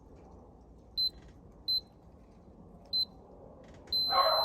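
Schlage BE469NX keypad deadbolt beeping as its code buttons are pressed: three short high beeps, then a longer beep near the end. The lock is failing to accept the code and showing an error, which the owner puts down to a dead battery.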